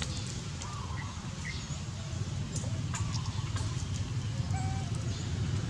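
Outdoor ambience: a steady low rumble with scattered short, thin animal chirps and a few light clicks over it.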